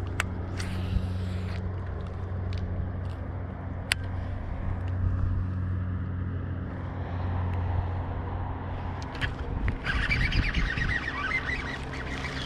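Bass boat's electric trolling motor humming steadily, with a few sharp clicks over it. About ten seconds in, a rougher hissing noise comes in and goes on.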